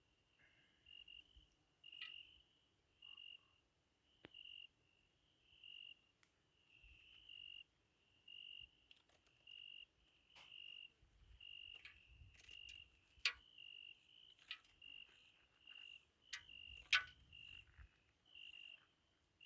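A cricket chirping steadily, about three short high chirps every two seconds, with a few sharp clicks and rustles of seeds being picked out of a pumpkin by hand.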